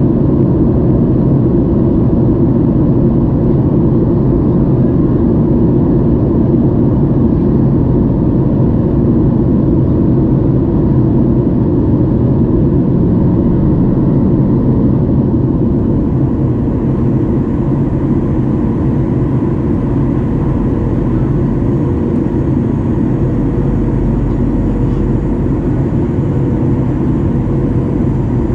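Steady cabin noise inside a Boeing 737-800 on descent: the rush of airflow and the low drone of its CFM56 turbofan engines, heard from a window seat beside the wing. About halfway through, faint steady tones join the drone.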